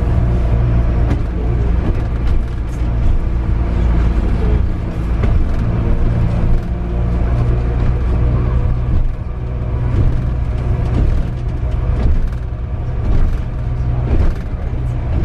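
Apron bus heard from inside its cabin as it drives across the airfield: a steady low engine and drivetrain drone, with scattered rattles and knocks from the cabin.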